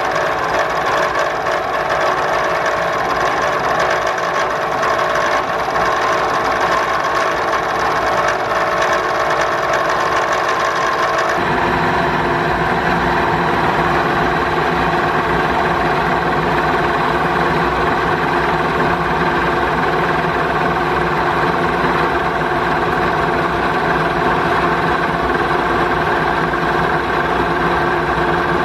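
Milling machine running steadily, cutting a plasma-cut steel block to square it up. The machine's pitch and tone change abruptly about a third of the way through.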